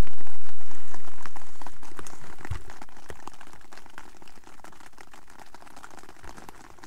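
Rain pattering on a tent's fabric: a dense crackle of many small drop ticks, loud at first and fading away over the next few seconds.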